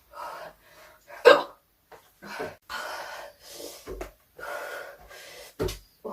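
A woman hiccuping: one sharp hiccup about a second in, the loudest sound, followed by breathy gasps and two more short catches of breath near the end.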